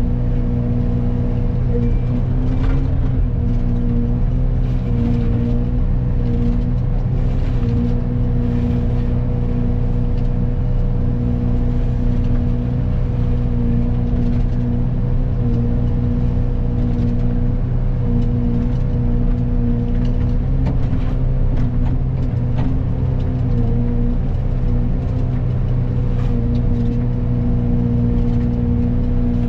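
Excavator diesel engine running steadily at working speed, driving a Fecon forestry mulcher head, a constant drone that dips slightly now and then, with short rasping noises scattered through it.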